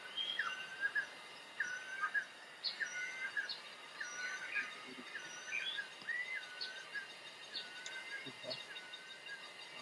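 Forest birds calling. One bird repeats a short whistled phrase, a quick note that drops onto a level tone, a bit more than once a second, while higher short chips from another bird sound over it.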